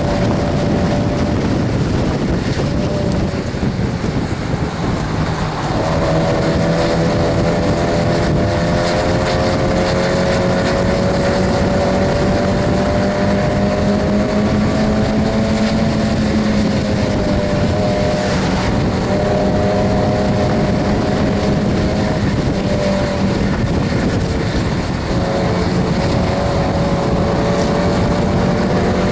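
Mazda MX-5 Miata's four-cylinder engine running hard under race load, heard from inside the cabin over steady wind and road noise. The engine note climbs slowly and falls back briefly a couple of times.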